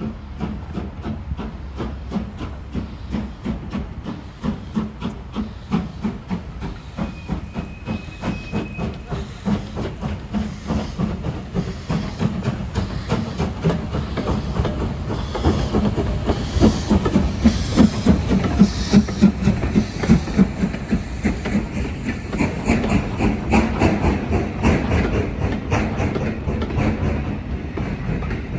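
Steam-hauled train running past, with a quick steady beat of exhaust and wheels clattering over the rail joints, louder toward the middle.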